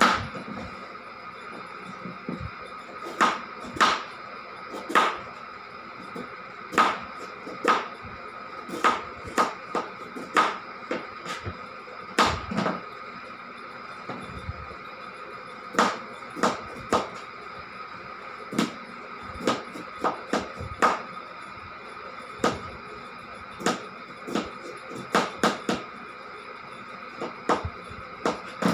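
Irregular sharp clicks and knocks, roughly one a second, from a knife cutting and trimming a piece of carrot by hand, over a steady background hum.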